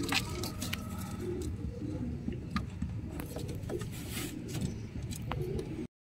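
Domestic pigeons cooing in a loft, low and repeated, with a few short sharp clicks scattered through.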